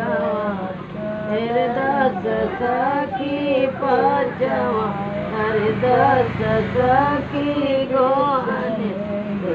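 Women singing a traditional folk wedding ritual song, a melodic line sung in long wavering phrases.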